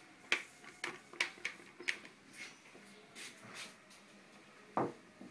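Handling noise on a workbench: a scatter of light clicks and taps in the first two seconds, some soft rustling, and one louder knock near the end.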